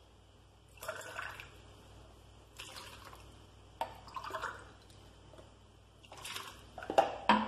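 Water poured in several short splashing bursts into a plastic basin and into a drinking glass as it is refilled. A few sharp knocks near the end, the loudest sounds, come from the glass being handled.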